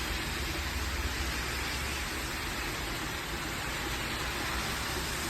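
Heavy rain pouring down as a steady, even hiss.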